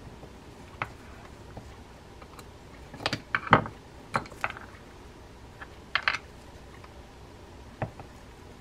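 Scattered small clicks and taps of fishing reel parts being handled, about half a dozen spread out, the loudest a little past the middle: the main gear and its parts on the side plate of an Okuma Solterra lever drag reel being worked loose by hand, and a small metal part set down on a wooden bench.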